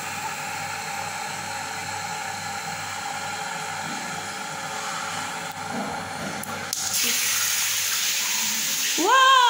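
Tap water running from a bathroom faucet into a water balloon held on the spout as it fills. About seven seconds in the stream turns louder and hissier as the balloon comes off and the water splashes straight into the sink basin. Near the end a brief voice rises and falls in pitch.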